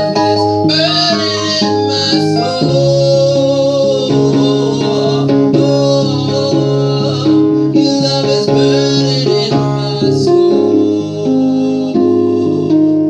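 Worship music: a band with guitar and keyboard plays sustained chords, with singing over it.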